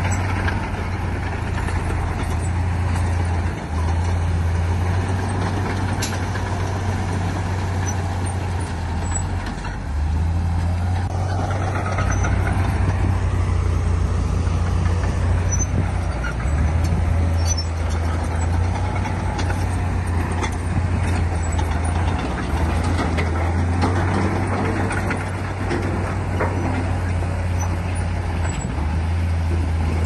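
Heavy earthmoving machine's diesel engine running with a steady low drone that dips briefly a few times.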